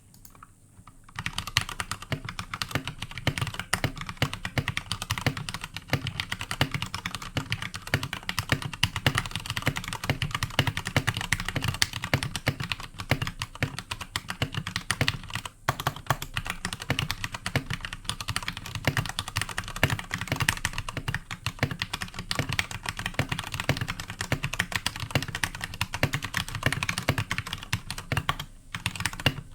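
Fast, continuous typing on an iKBC Poker II mechanical keyboard with Cherry MX Red linear switches, a dense stream of key clacks starting about a second in, with a brief pause near the middle and another near the end.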